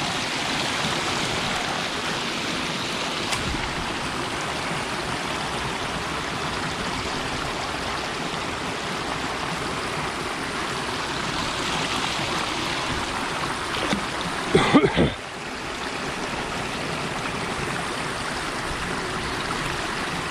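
Steady rush of rain-swollen water flowing at a dam. About three-quarters of the way through comes one brief, louder sound.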